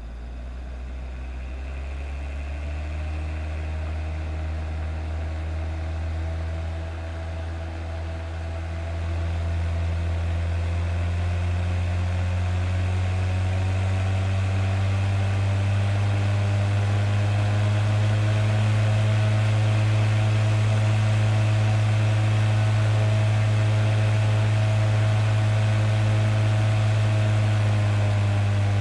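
Homemade low-solidity fan impeller with only a few long blades, spinning on a CPU tower heatsink: a loud low hum with a stack of overtones. It climbs in pitch and volume as the fan speeds up over the first half, then holds steady.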